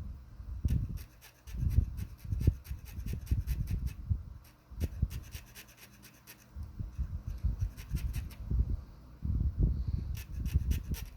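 A blade scraping excess paint off a model ship's door: quick runs of fine scratchy ticks in three spells, mixed with low thumps from handling the model.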